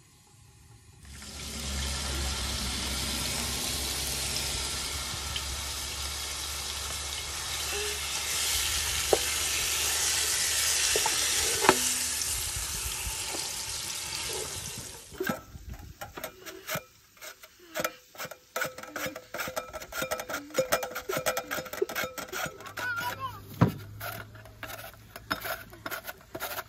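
Marinated chicken frying in hot oil in a pan, a loud steady sizzle with a wooden spatula stirring. About halfway through the sizzle stops abruptly and gives way to irregular light clicks and knocks.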